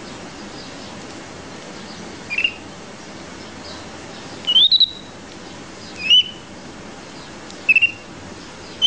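Young capuchin monkey giving short, high-pitched peeps that glide upward, about five of them a second or two apart, one a quick double.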